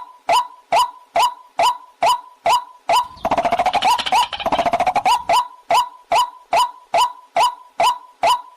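Recorded waterhen call played as a hunting lure: short sharp calls repeated about two and a half times a second, broken about three seconds in by a fast rattling trill that lasts about two seconds before the calls resume.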